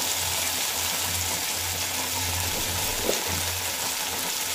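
Malabar spinach seeds and a green chilli sizzling steadily in hot oil in a kadai.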